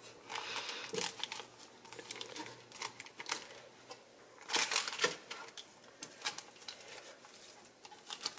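Raw, partly frozen chicken thighs being handled and set into an air fryer basket lined with a paper liner: irregular crinkling and rustling with light taps and clicks, loudest about halfway through.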